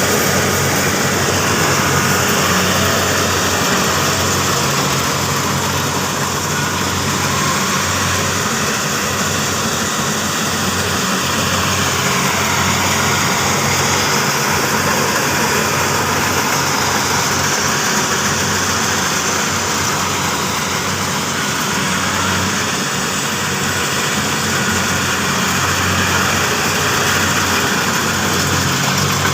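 Kubota rice combine harvester running steadily: a constant engine hum with an even hiss of machinery noise over it.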